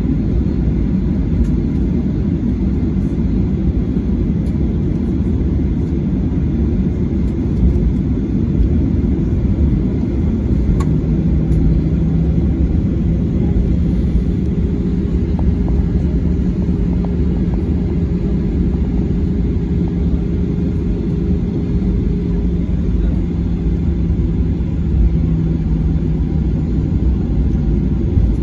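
Cabin noise of a Boeing 737-800 airliner taxiing: its CFM56 jet engines at low taxi power give a steady low rumble. A steady hum comes in about eleven seconds in and holds.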